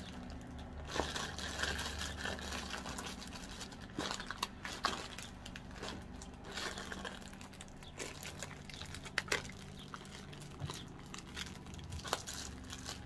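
Thin plastic bag crinkling and rustling as hands twist and fold it shut around a portion of pickled spider-plant greens, with scattered small clicks.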